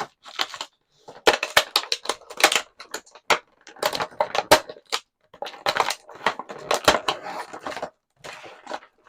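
Plastic action-figure packaging crackling and crinkling with many sharp clicks as the figure is worked out of it. It comes in spells of a second or two with brief pauses between.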